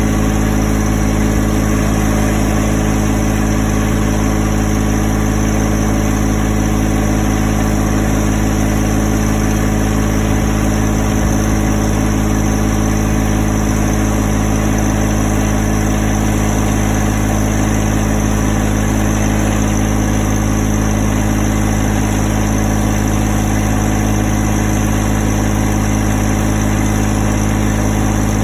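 An engine running steadily at a constant speed, with an even low hum and no revving.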